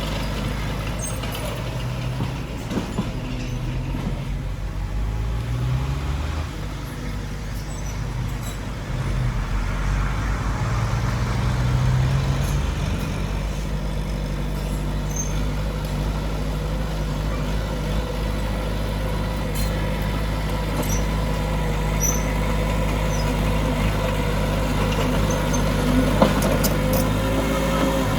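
Heavy diesel earthmoving machinery running, its engine pitch rising and falling several times in the first half as the load changes, then steady, with scattered clicks and clanks.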